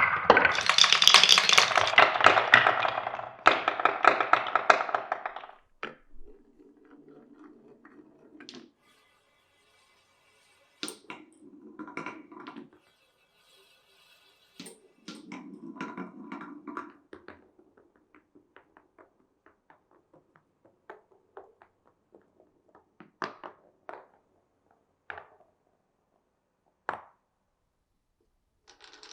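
Glass marbles running through a wooden marble run. A dense clatter of many marbles lasts about the first five seconds. After that, single marbles roll along wooden track with a low rumble, broken by clicks, taps and knocks as they drop and strike the pieces. The sound thins to a few separate knocks near the end.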